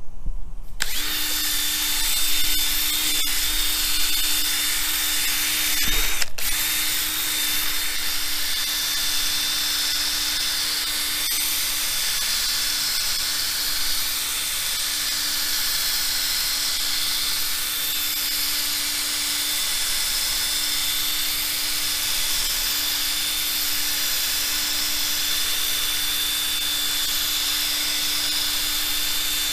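Electric drill running steadily, spinning a buffing pad to polish a plastic motorcycle windscreen. It starts about a second in and drops out for a moment around six seconds.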